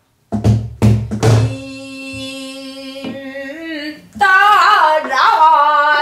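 Pansori singing over a buk barrel drum: three drum strokes about half a second apart near the start, then a long held sung note that gives way about four seconds in to louder singing with a wide, wavering vibrato.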